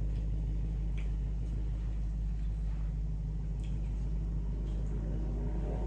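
A person drinking soda from a glass bottle, with a few faint swallowing clicks, over a steady low rumbling hum.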